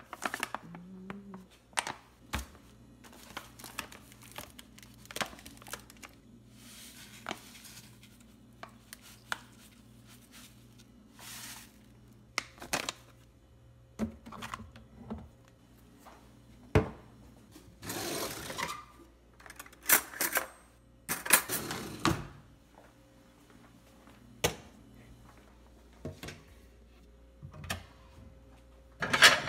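Kitchen handling noises: scattered sharp clicks and knocks as a coffee bag, jars and plates are taken from cupboard shelves, with a few second-long stretches of rustling. A faint steady hum runs underneath.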